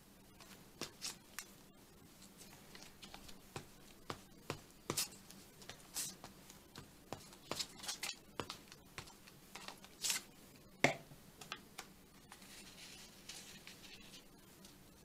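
Paper being handled and glued with a glue stick: scattered short rustles and taps, then a softer rubbing rustle near the end as paper is smoothed down. A faint steady hum sits underneath.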